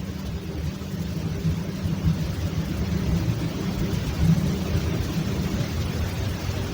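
A steady, loud low rumble, nearly all in the bass and wavering slightly in level. It is an unexplained noise whose source has not been traced: others say they had nothing switched on.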